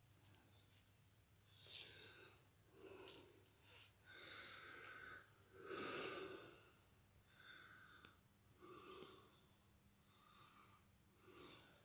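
Near silence, with faint breathing close to the phone's microphone: a series of soft breaths about every one to two seconds.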